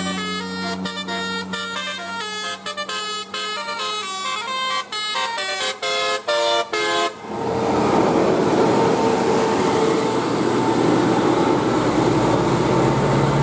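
A bus's multi-tone 'telolet' air horn playing a quick tune of short stepped notes over a steady low hum. About seven seconds in the tune stops and a loud, even rushing noise with a held tone takes over.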